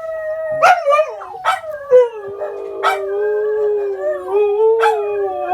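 Several pet dogs howling together in long held notes, with about four sharp barks breaking in, howling back at neighbouring dogs.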